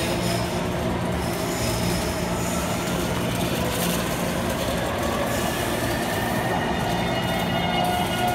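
Taipei Metro C321 electric train pulling out of an underground station, with a steady rumble of wheels on rail as it runs past the platform. A faint motor whine climbs slowly in pitch in the second half as the train gathers speed.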